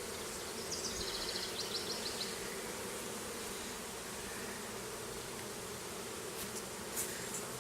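Honeybee colony buzzing steadily around an opened hive, a continuous hum, with a short run of faint high ticks about a second in.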